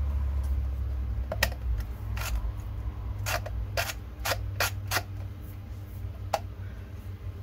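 Hard plastic clicks and knocks as the 3D-printed iris valve is handled and worked on its plastic pipe: about eight sharp clicks, several in a quick run through the middle, over a steady low rumble.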